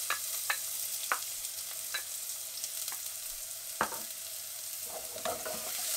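Chopped onion and garlic frying in hot oil in a saucepan: a steady sizzling hiss with scattered sharp crackles and pops.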